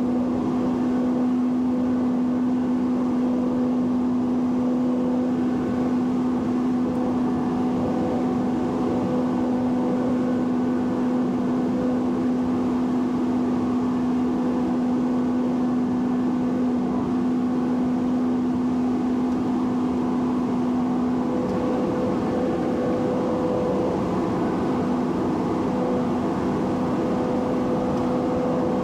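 Cockpit drone of a Cessna 208 Caravan in flight: its single turboprop engine and propeller running steadily, with a strong low hum. About 21 seconds in the hum changes pitch, its lower tone fading as a higher one comes up.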